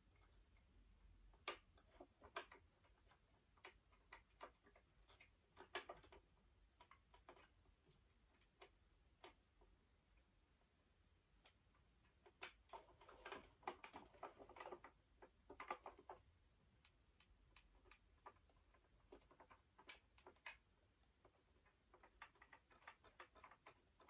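Faint, irregular clicks and small rattles of the animatronic Santa's plastic parts and mechanism being handled, with a busier run of clicking about halfway through.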